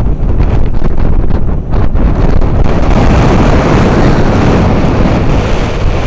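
Strong wind buffeting the microphone: a loud, rumbling rush of noise that grows heavier about two and a half seconds in.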